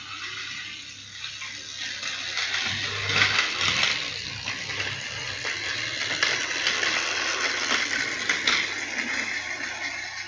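Battery-powered Tomy Plarail toy train running along plastic track: a whirring motor and rattling wheels. It grows louder over the first couple of seconds and fades near the end.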